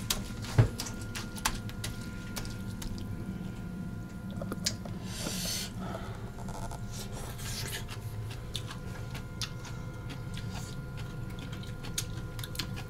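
Wet food being handled in a bowl: soft wet squishing with many scattered light clicks and taps, and a brief hiss about five seconds in, over a faint steady hum.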